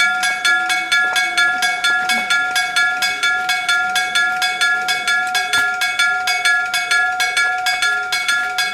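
Electric-bell level crossing warning bell ringing, struck in rapid, even strokes about three times a second over a steady ringing tone.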